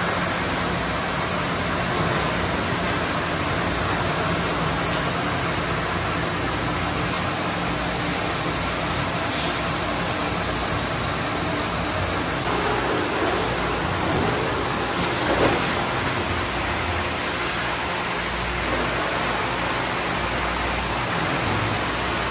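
Steady hiss and hum of a CapSnap 5-gallon water bottling line running, with a brief knock about two-thirds of the way through.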